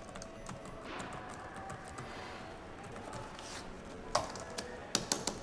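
Typing on a computer keyboard: a run of light key clicks, with a few sharper clicks about four and five seconds in.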